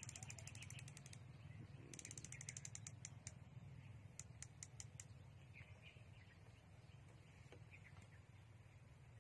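Riflescope's top adjustment turret being turned by hand, its detents giving light clicks. There are two quick runs of rapid clicks, then about five single clicks a few seconds in, as the scope's aim is adjusted.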